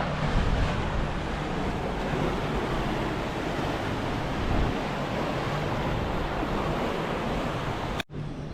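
Steady outdoor rushing noise, even and unbroken, that cuts out abruptly for a split second near the end.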